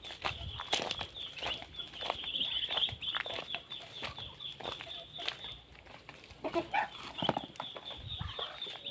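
Backyard poultry clucking and peeping, over a steady high-pitched trill. Footsteps crunch on dirt and dry leaves throughout.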